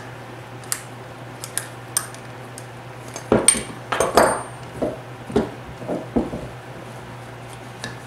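Steel C-clamps being unscrewed and set down on a workbench: scattered light metal clicks and clinks, with a cluster of louder knocks about three to four seconds in.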